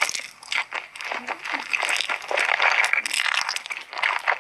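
Close-miked eating of Korean noodles: rapid wet mouth clicks and chewing noises, with short bursts of louder smacking.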